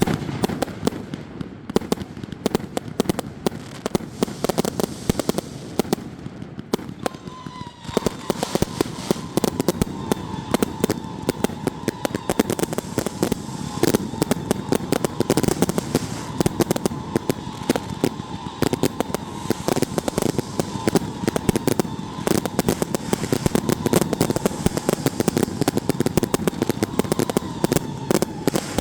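Fireworks going off in a dense, continuous run of rapid pops and crackles. About seven seconds in, a steady high tone joins and holds, sinking slightly in pitch.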